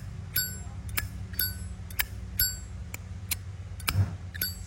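Zippo lighter lid clicked open and snapped shut over and over, about two clicks a second, each with a clear bell-like metallic ping. The lighter's hinge and cam have been tuned to give this ringing 'bell' sound.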